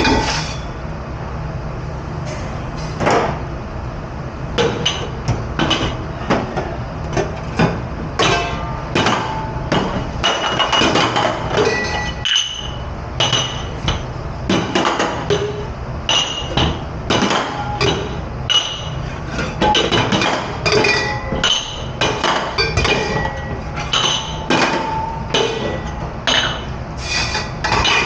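Dishes, pans and utensils clattering and clinking as they are handled in a commercial dish room: many sharp knocks in quick, irregular succession, some ringing briefly, over a steady low hum.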